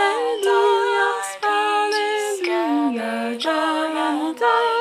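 A cappella singing of a round in three overlapping parts, held notes in harmony with pitch glides between them.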